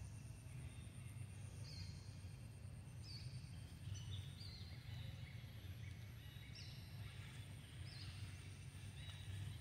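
Birds calling again and again: short, high, descending phrases about once a second. Under them run a steady high-pitched insect whine and a low rumble.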